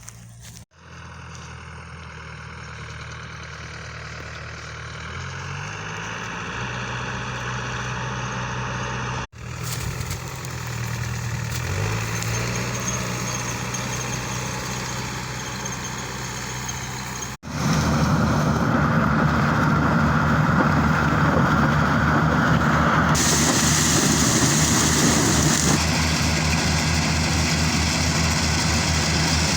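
Engine of a corn-harvesting machine running steadily, its pitch stepping up a little a couple of times. It gets louder and noisier about two-thirds of the way through.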